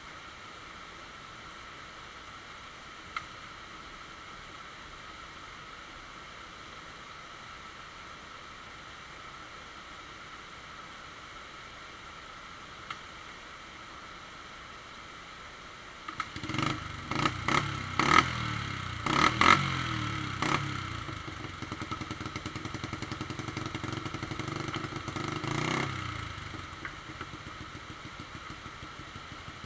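Steady rush of a rocky creek. About 16 seconds in, a dirt bike engine starts and is blipped in short, sharp revs, then runs steadily for several seconds before dropping back to a lower, quieter run near the end.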